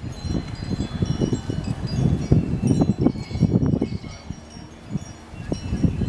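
Wind chimes tinkling, many short ringing notes at different high pitches, over a gusty low rumble of wind on the microphone that eases after about four seconds.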